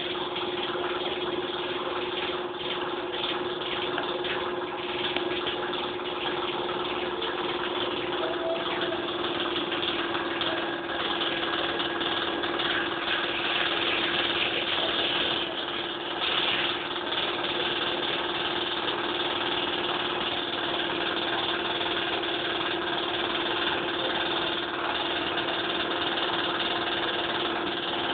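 A motor running steadily, with a constant hum.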